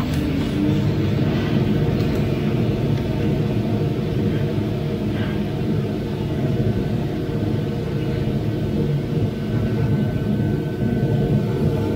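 Loring 15k Falcon roaster's cooling tray running with a freshly dropped batch of roasted coffee: the beans are stirred round the tray as the cooling fan draws air through them. A steady machine drone, with a hum that rises in pitch at the very start and then holds.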